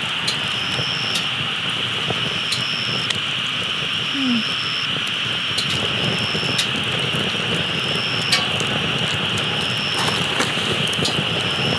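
Campfire crackling with scattered sharp pops, over a steady high-pitched hum and a short high chirp that repeats about every second and a half.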